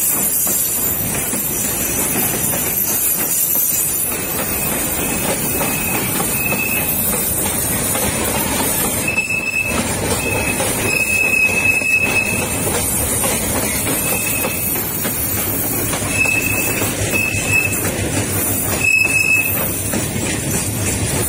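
Freight train's boxcars rolling past at close range, a steady rumble of wheels on rail. Short high-pitched squeals from the wheels come and go about a dozen times through the middle of the pass.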